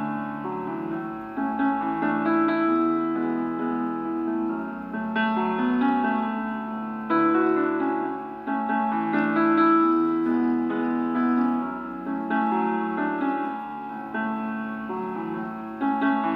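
Background piano music: a slow keyboard melody of held notes and chords, with a new note or chord struck every second or two.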